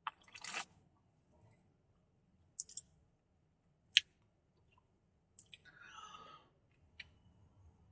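Quiet, scattered mouth noises of someone tasting a drink: lip smacks and tongue clicks, a sharp click about four seconds in, and a softer, longer mouth sound about six seconds in.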